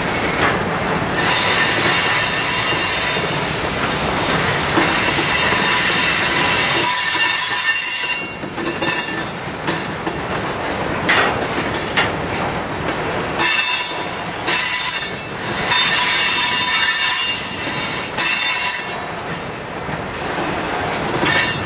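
Freight train of CSX covered hopper grain cars rolling past at close range: a steady rumble and clatter of steel wheels on the rails. High-pitched wheel squeal comes and goes.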